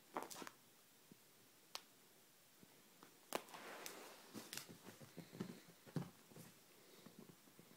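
Faint handling noise: a handful of scattered sharp clicks, with a stretch of fabric rustling about three to four and a half seconds in, as a kitten scrambles on a lap and the phone is moved.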